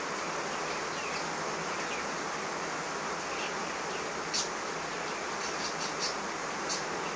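Steady background hiss, with a few faint light scrapes and taps of a husked coconut against a steel plate, about four seconds in and again around six seconds.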